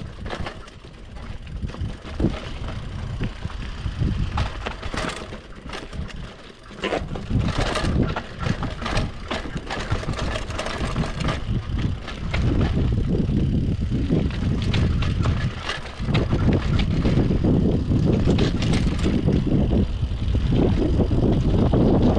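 Mountain bike clattering over a rough trail during a fast descent, with wind rumbling on the camera microphone. The rattle and wind noise grow louder about halfway through.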